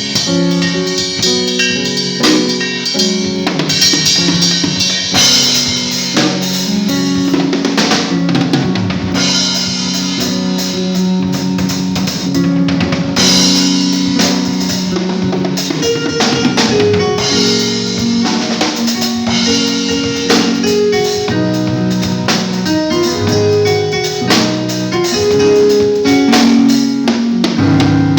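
Drum kit played continuously, kick and snare hits in a steady groove, with other instruments playing held notes underneath.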